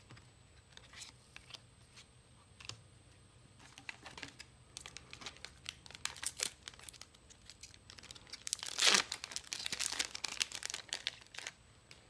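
Foil wrapper of a Final Fantasy TCG Opus V booster pack being torn open and crinkled, with scattered rustles and clicks of handling. The loudest tear and crinkle comes about nine seconds in.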